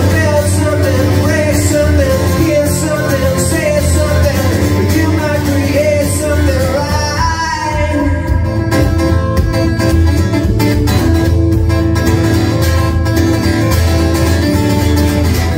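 Live solo performance: a cutaway electro-acoustic guitar strummed steadily, amplified through a PA, with a man singing over it.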